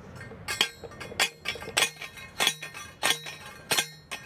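A metal post being driven into the ground: about seven hard metal-on-metal strikes, roughly one every 0.6 s, each with a short ring.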